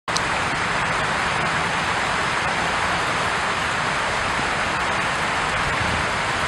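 Steady rushing of water, an even hiss with no separate wave crashes, starting abruptly.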